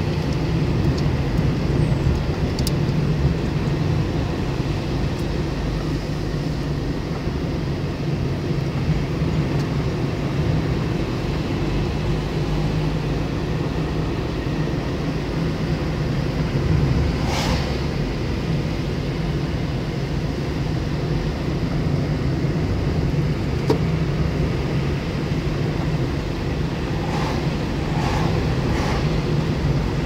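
Steady road noise heard inside a moving car: low engine and tyre rumble with a few brief clicks, one about halfway and a cluster near the end.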